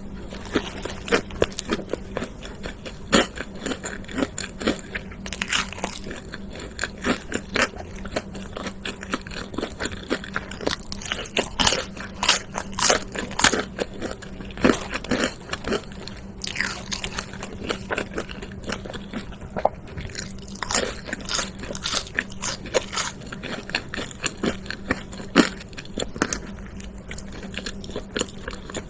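Close-up eating sounds of fast food: a person biting and chewing, with many sharp, irregular crunches.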